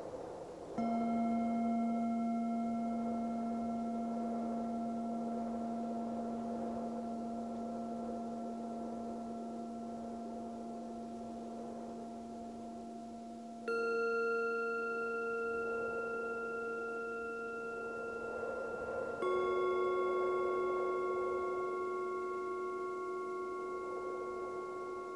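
Singing bowls struck three times, about a second in, about fourteen seconds in and about nineteen seconds in. Each strike is a different pitch, and each note rings on long with several overtones slowly fading. Soft wind swells and ebbs underneath.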